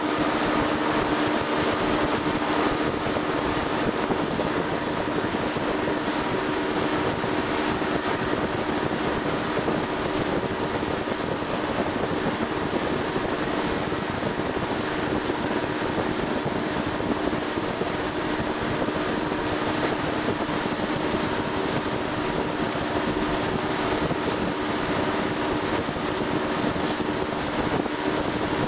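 Boat motor running steadily under way, a constant hum, with wind buffeting the microphone.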